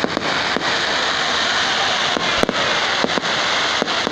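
Fireworks display going off: a steady dense hiss with sharp bangs scattered through it, about six within these few seconds.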